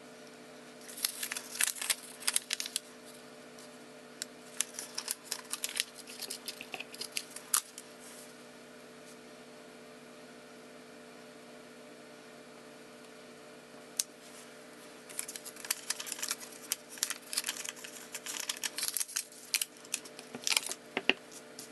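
Handling noises of stamping supplies: bursts of small clicks, taps and rustles as a clear acrylic stamp block and card stock are pressed, lifted and moved on a craft mat, with a quiet lull in the middle. A steady low hum runs underneath.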